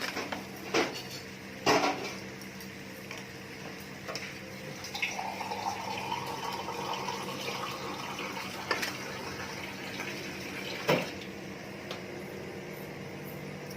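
Kitchen cookware clatter: a few sharp metal knocks on a pan as rice is added to the pulao, with a stretch of steadier rustling noise in the middle.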